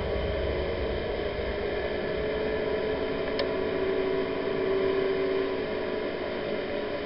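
A small boat's engine running at a steady speed under way, with a steady hum and rush of wind and water; a faint single tick about three and a half seconds in.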